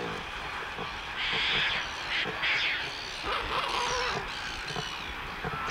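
A crowded group of courting Australian pelicans, bill clapping and jostling, with a few louder bursts about one and two and a half seconds in.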